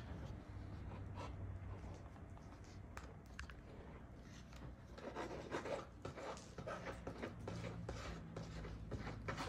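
Faint irregular rubbing and scraping, with a couple of light clicks about three seconds in, over a low steady hum. The scraping thickens in the second half.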